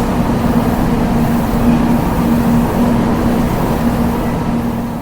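Train running noise: a steady dense rumble with a constant low hum, easing off slightly near the end.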